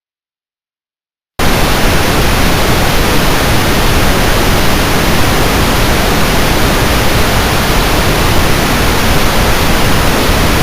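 Silence, then about a second and a half in a loud, steady hiss of television static cuts in abruptly: the sound of a TV station's signal gone off the air after discontinuing programming.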